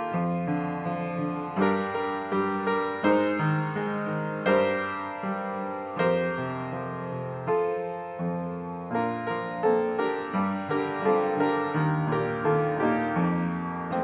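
Piano playing a slow offertory piece, each struck note or chord fading before the next.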